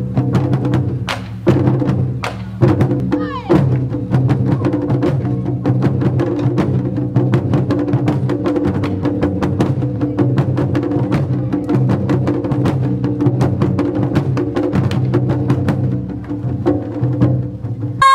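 Taiko drum ensemble playing a fast, driving rhythm of drum and stick strikes over sustained held notes.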